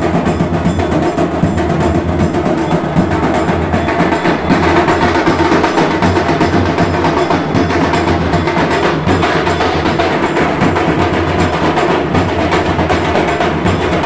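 Dhol drums beaten loudly in a dense, unbroken drumming rhythm.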